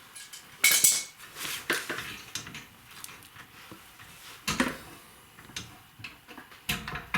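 Metal clinks and rattles of hand tools against rear brake hardware (shoes, return springs and clips) as it is worked loose: a string of sharp, separate clinks with handling noise between them.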